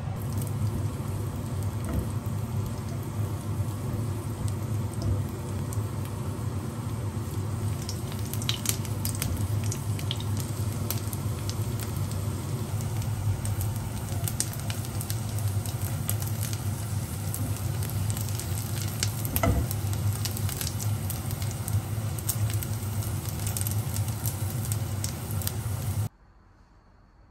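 Dried shrimp frying in oil in a nonstick pan on low heat: a steady sizzle with scattered small crackles and pops. It cuts off suddenly near the end.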